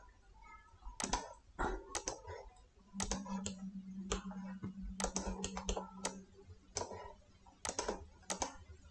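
Irregular clicking and tapping of a computer keyboard and mouse, uneven single clicks and short runs of taps.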